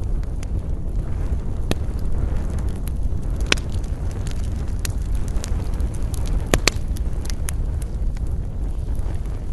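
Wood campfire crackling, with scattered sharp pops, the loudest about three and a half and six and a half seconds in, over a steady low rumble.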